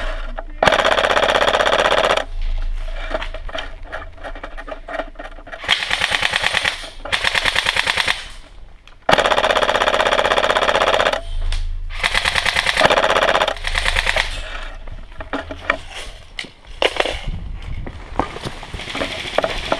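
Airsoft electric gun firing on full auto in a series of rapid bursts, the longest about two seconds, separated by short pauses.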